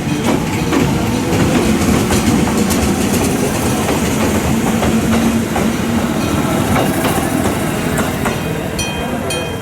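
An electric train running over a station level crossing, wheels clicking over the rail joints, while the crossing's electric warning bell rings. The bell's high ringing comes through clearly near the end as the train noise eases.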